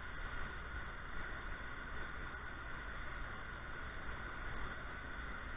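Steady rushing noise of water pouring over a dam spillway.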